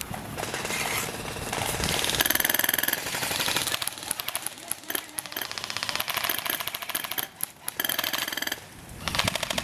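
Airsoft guns firing rapid full-auto bursts, a fast even rattle of shots that runs for several seconds with short breaks.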